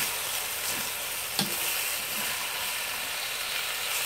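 Lamb and bok choy sizzling in a hot wok with a steady hiss while a spatula stirs them, knocking sharply against the wok once about a second and a half in.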